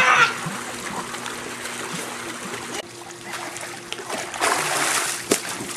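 Swimming-pool water splashing and trickling, a steady wash that dips in the middle and swells again, with one sharp click near the end.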